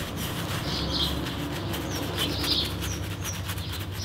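A paintbrush scrubbing paint onto a rough sandstone frame in quick short strokes, while small birds chirp now and then in the background.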